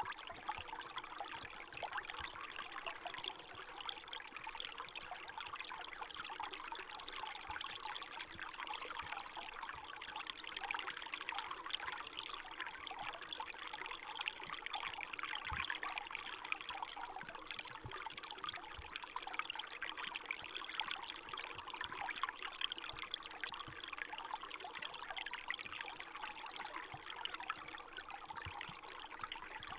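Small forest stream running steadily, a constant trickling and splashing of water in winter.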